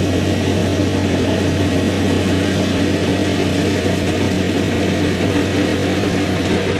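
Kubota DC70 rice combine harvester running steadily as it cuts and threshes ripe rice: a loud, even diesel engine and machinery drone with no change in pace.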